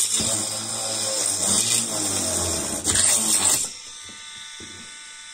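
DC 775 motor of a homemade drill-mixer running at speed with a loud, steady whir and low hum. A little over three and a half seconds in, the sound drops off sharply to a much quieter steady tone.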